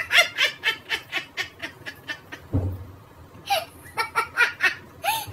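A young woman laughing hard in rapid bursts, about four or five a second. She pauses briefly in the middle and then laughs again near the end.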